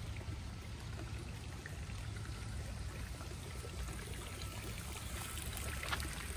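Water of a backyard koi pond's waterfall and fountain, steadily trickling and splashing into the pond.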